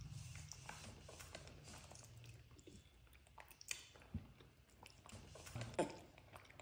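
Faint, soft chewing and mouth smacking of a young macaque eating chewy dried persimmon, with a few sharper clicks in the second half.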